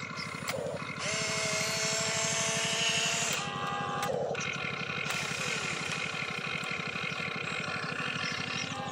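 Electric motors and plastic gearboxes of an RC excavator whirring as the boom lifts and the cab slews round. Steady whines switch on and off and shift in pitch as different functions run, loudest about one to three seconds in.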